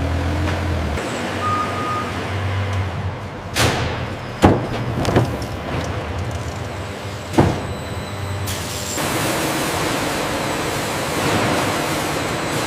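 Industrial vehicle hauling materials, its engine running with a steady low rumble. A short reversing beep sounds about a second and a half in, and several sharp clanks and hisses follow between about four and eight seconds in.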